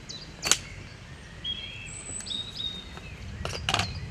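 A bait catapult is fired once, giving a sharp snap about half a second in; two shorter clicks follow near the end. Small birds chirp repeatedly in the background.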